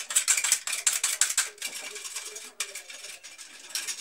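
Hand tool being worked on a plumbing pipe or fitting, giving a quick run of sharp ratchet-like clicks for about a second and a half, then scattered clicks and a further cluster near the end.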